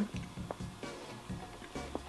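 Quiet background music with a soft, regular low beat, and a faint click or two from a closed mouth working a piece of candy.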